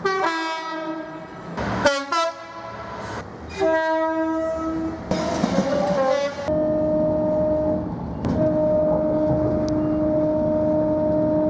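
Train horn sounding a run of short blasts that change pitch from one to the next, then a long held blast with a brief break in it, cut off abruptly at the end.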